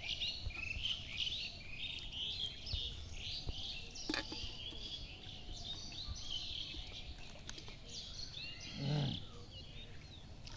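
A steady outdoor chorus of many short, high chirps from birds, with insects among them. A brief low sound comes near the end.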